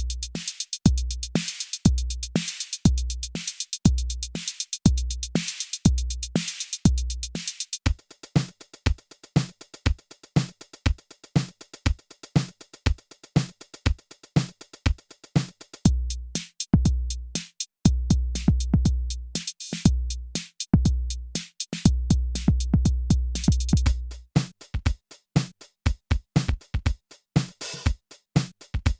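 Electronic drum machine beat: a steady kick drum under hi-hats, a middle stretch where the kick drops out and only fast hi-hat ticks carry on, then the kick comes back with long, deep booming notes.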